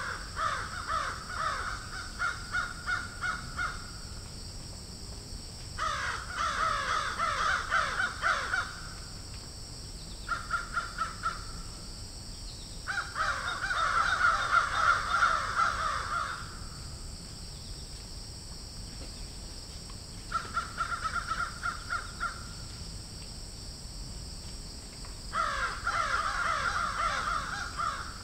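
A bird calling in six bouts of quick repeated notes, each bout lasting two to four seconds with pauses between, over a faint steady high-pitched tone.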